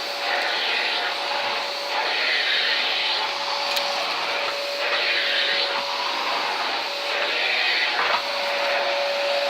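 Small vacuum cleaner running: a steady motor whine under a rush of air that swells and fades about once a second. There is one brief sharp click a little before halfway.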